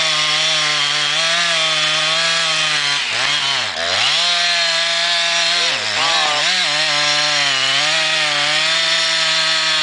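Chainsaw running at full throttle, cutting into the base of a big poplar trunk. The engine pitch holds steady in the cut but dips sharply twice, about three and a half and six seconds in, before climbing back.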